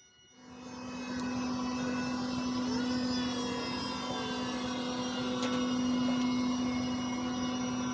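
Iveco S-eWay electric truck pulling a laden low-bed trailer slowly past. It makes a steady hum and the gliding whine of its electric drive, fading in over about the first second.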